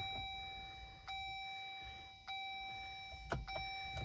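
Jeep 4xe's dashboard warning chime: a bell-like ding struck about every 1.2 seconds, each fading slowly. A few short clicks come in near the end.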